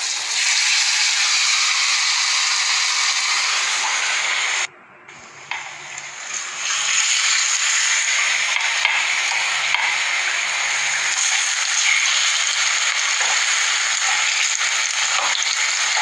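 Plantain slices frying in hot oil in a frying pan: a steady sizzling hiss. It drops away about five seconds in and comes back, louder, about a second and a half later.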